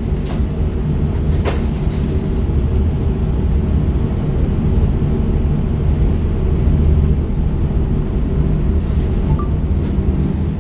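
A steady low rumble, with a few faint sharp cracks in the background, once near the start and again about nine seconds in.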